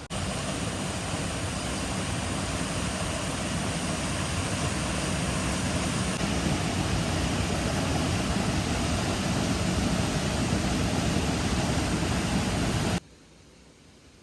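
Steady rushing noise of a flowing stream over rocks, cutting off abruptly near the end to a much quieter background.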